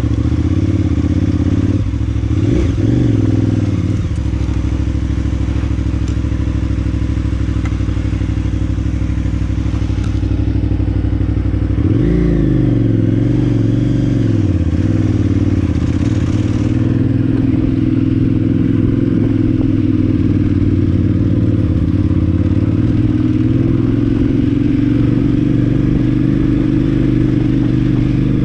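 KTM 990 Adventure S's V-twin engine running under way. The revs dip and climb again a couple of seconds in and once more about midway, then hold fairly steady.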